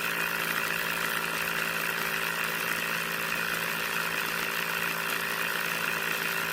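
Small DC hobby motor of a homemade drilling-rig or water-pump model running steadily, a constant buzzing whine with a low hum beneath it.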